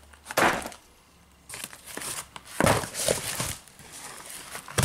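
Packaging being handled: plastic wrapping and cardboard boxes crinkling and rustling in several short bursts, the loudest about three seconds in.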